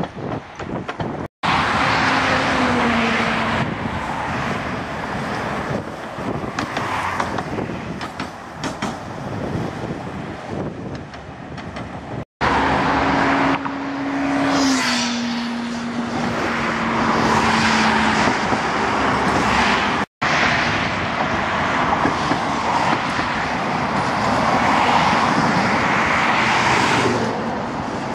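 Road traffic and Tatra trams passing on a multi-lane road: steady tyre and engine noise of passing cars, with a low hum that drops in pitch in places. The sound breaks off abruptly three times at cuts between shots.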